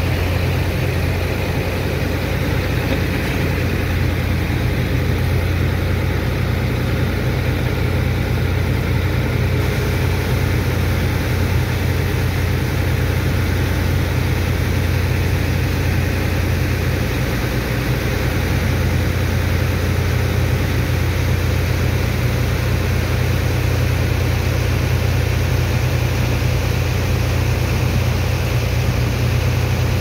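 Heavy engine of the sand-unloading dredge pump running steadily with a low drone, over a constant hiss of the water jet from a high-pressure hose.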